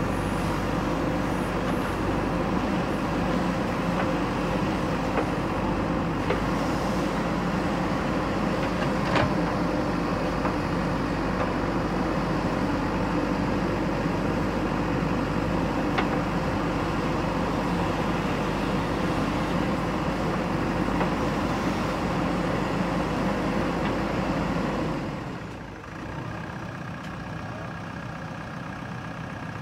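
JCB backhoe loader's diesel engine running at working revs while the backhoe digs and loads soil, with a few brief knocks. About 25 seconds in the engine drops back to a quieter, steady idle.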